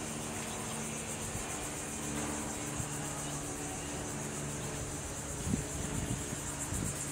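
Insects buzzing steadily in a high, fast-pulsing drone over a low, steady machinery hum, with a few soft knocks about five and a half seconds in.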